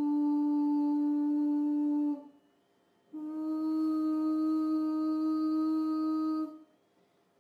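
Sand-covered Chladni plate driven at set frequencies, sounding steady pitched tones with overtones. One tone stops about two seconds in. After about a second's break, a slightly higher tone sounds for about three seconds and cuts off shortly before the end.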